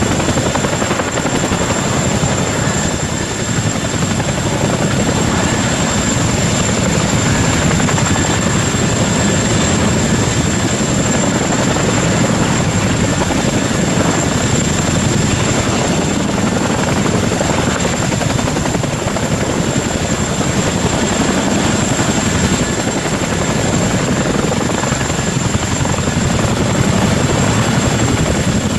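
Boeing CH-47 Chinook twin-engine tandem-rotor helicopter running steadily and loudly, its rotor noise dense and continuous with a steady high whine over it.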